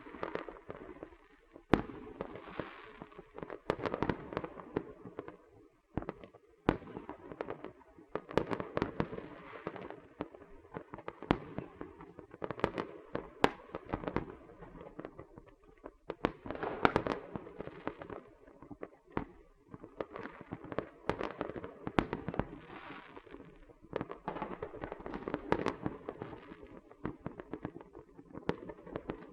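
Small fireworks and firecrackers going off: a dense, irregular run of sharp cracks and pops over continuous crackling.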